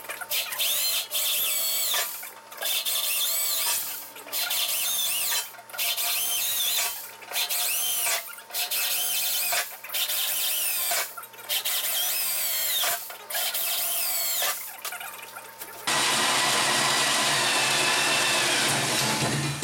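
Corded electric drill boring into the aluminium top of a fuel cell in about ten short bursts, with a squealing bit of wavering pitch. Near the end it changes to one steady, continuous run as a hole saw cuts through the aluminium sheet.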